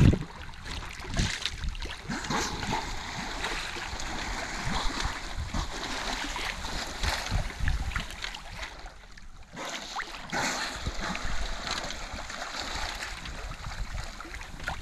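Water rushing and splashing along the hull of a small sailing yacht under way, with wind buffeting the microphone. The sound briefly drops away about two-thirds of the way through.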